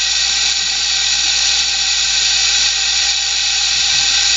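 Hot water running steadily from a sink tap, a loud even rushing hiss.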